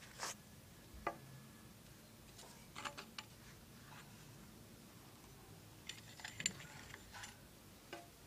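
Faint scraping and crackling of a relief cast being peeled and rolled off a carved mould by hand: a few short clusters of scrapes and clicks, the loudest about six and a half seconds in.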